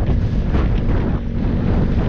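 A vehicle engine running at steady speed under heavy wind buffeting on the microphone, the sound of riding along a road.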